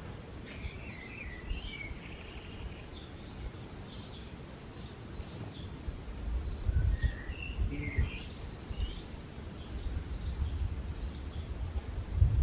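Birds chirping and calling in short, varied notes over a low rumbling noise, which swells in uneven gusts about six seconds in and again near the end.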